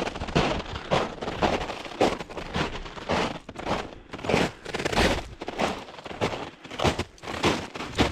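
Footsteps crunching at a steady walking pace, about two steps a second.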